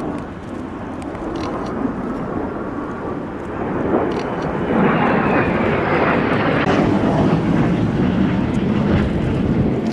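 Jet engine noise from a Blue Impulse Kawasaki T-4 jet trainer flying past. It grows louder from about four seconds in, with a falling whine as the jet goes by, then stays loud.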